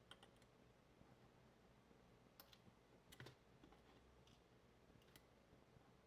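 Near silence with a handful of faint, light clicks of steel tweezers against the brass pin-chamber housing of a padlock cylinder as a top pin and spring are worked out of a chamber.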